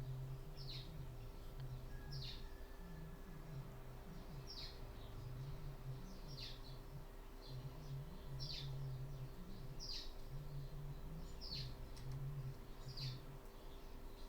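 A bird chirping over and over, short downward-sweeping calls about every second and a half, over a steady low hum.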